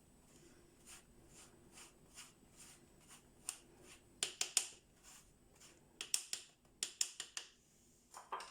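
Dry flour and baking powder being stirred in a bowl: soft rhythmic scraping strokes, about two a second at first, then louder, quicker clusters of strokes about four seconds in and again after six seconds.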